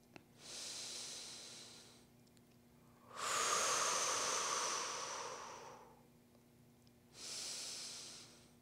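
A person's slow, deep breaths picked up close by the microphone while holding a stretch: three long breaths, the middle one the loudest and longest with a thin high whistle running through it.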